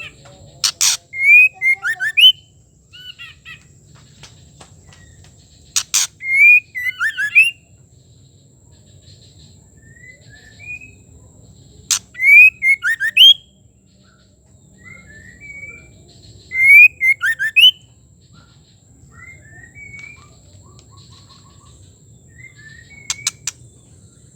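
Female white-rumped shama calling: short, loud phrases of whistled notes that slide up and down, repeated about every five seconds, several opening with a sharp click, with softer chirps in between.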